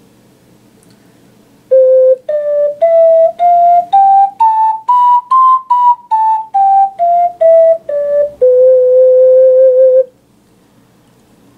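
Plastic alto C ocarina played as a scale: separate clear notes climbing one octave step by step from about two seconds in, then back down, ending on a held low note that stops about ten seconds in.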